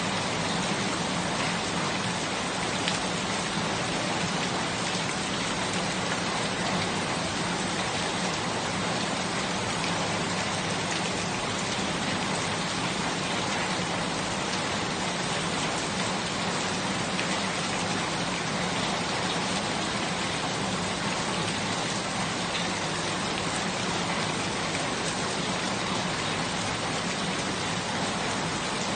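Steady rain falling, an even hiss of drops with fine patter, unchanging throughout.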